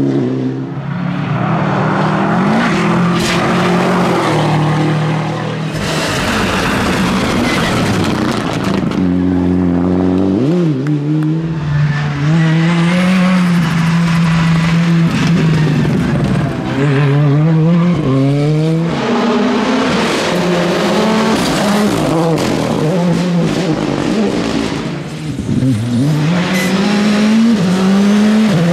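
Several rally cars of the R5/Rally2 class, with 1.6-litre turbocharged four-cylinder engines, passing one after another at full attack. Their engine pitch repeatedly climbs and then drops at each gear change, with occasional sharp cracks and bursts of tyre and gravel noise.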